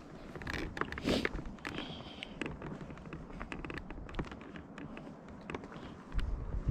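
Scattered light taps and clicks, with a low rumble rising near the end.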